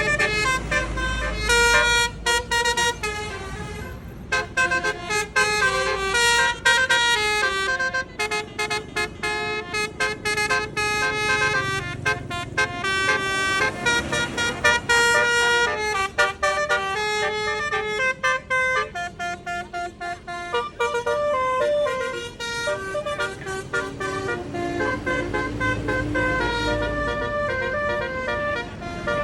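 A bus's telolet basuri melody horn plays a quick tune of stepped, rapidly changing notes over the low rumble of the bus's engine.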